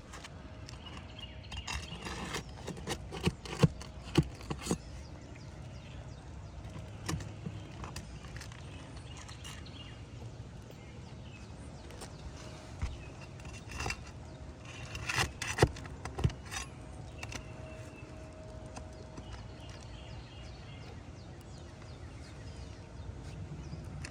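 Hand tools knocking, clicking and scraping on a roof as a damaged shingle is worked loose and pried out, with sharp knocks in two bursts, a couple of seconds in and again around the middle, over a steady low background rumble.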